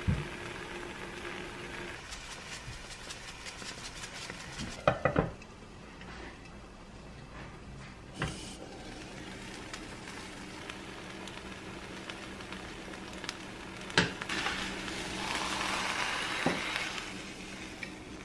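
Egg frittata sizzling in a nonstick frying pan, with a few sharp knocks of the pan. Near the end a spatula scrapes along the pan for a couple of seconds as the frittata is loosened and slid out.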